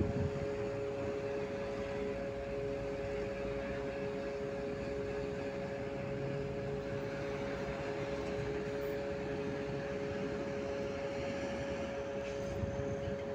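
Steady background of road traffic with a constant two-note mechanical hum running through it.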